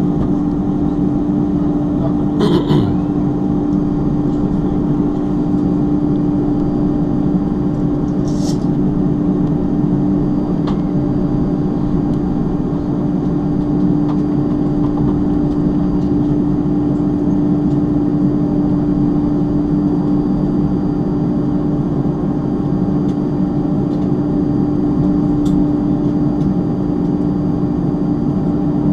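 Steady cabin noise of an Airbus A310-325 taxiing, its turbofan engines at idle: a constant droning hum with a low rumble underneath. A couple of brief clicks sound about two and eight seconds in.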